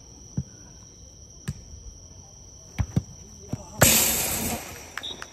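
Jokgu ball being kicked and bouncing: a string of short sharp thuds, then a loud burst of noise about four seconds in that fades away over about a second. A steady high insect trill runs underneath.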